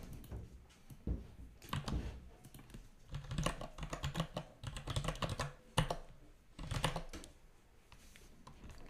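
Typing on a computer keyboard: several bursts of quick keystrokes as a command is entered.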